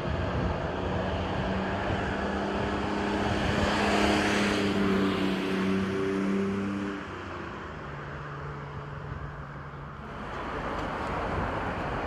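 Road traffic: a motor vehicle passes, loudest about four seconds in, with a steady engine hum under the tyre noise. Then quieter traffic noise, rising again near the end.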